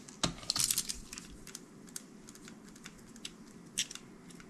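Small clicks and taps of a Canon AE-1 Program camera body being handled while a thin pick tool presses yarn into its seal channel: a knock about a quarter second in, a quick cluster of clicks just after, then scattered single ticks.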